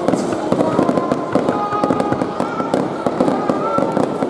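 Aerial fireworks shells bursting overhead: a dense, rapid crackle of many small pops at an even loudness, with no single big boom standing out.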